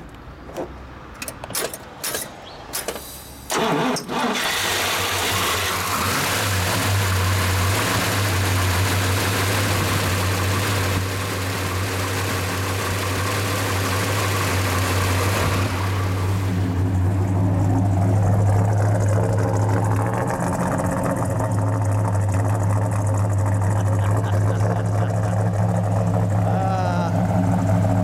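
A 1969 Dodge Charger Daytona's 426 Hemi V8 with dual four-barrel carburettors starting: a few clicks and clunks, then it fires about four seconds in. It runs loud and busy for about twelve seconds, then settles into a lower, steady idle.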